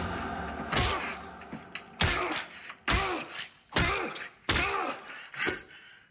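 A series of six heavy thuds, roughly one a second, each with a short ringing tail and each quieter than the last.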